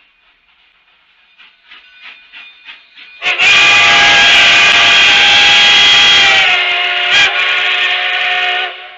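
K36 No. 487, a narrow-gauge steam locomotive, blows its steam whistle in one long, very loud blast lasting about five seconds; the pitch sags slightly near the end and there is a brief break just before it stops. Before the whistle, the locomotive's exhaust chuffs build up at a few beats a second as it works out of the yard.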